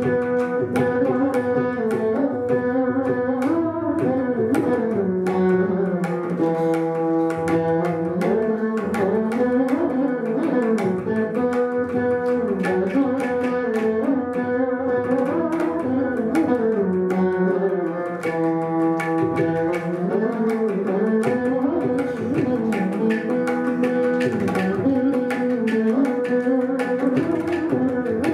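Carnatic veena duet: two veenas play a melody of sliding, ornamented notes that rise and fall, over a steady run of mridangam and ghatam strokes.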